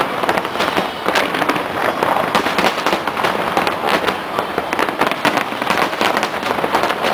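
Aerial fireworks display going off in a dense, unbroken run of sharp bangs and crackles, several reports a second.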